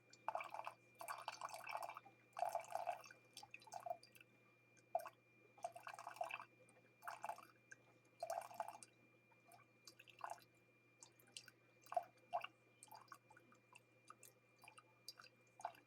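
Hamilton Beach 5-in-1 coffee maker brewing, with hot coffee sputtering and dripping into the cup in faint, irregular gurgles every half second to a second.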